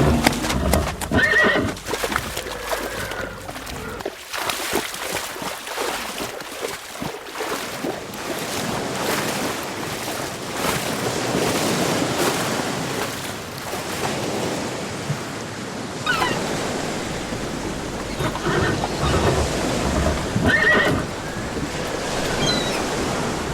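A horse whinnying in short high calls, about a second in and twice more later on, over a steady rushing noise like wind or surf.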